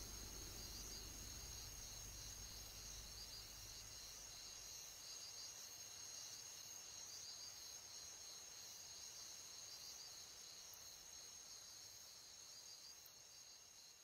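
Near silence, with a faint steady high-pitched ringing and hiss that fades out near the end.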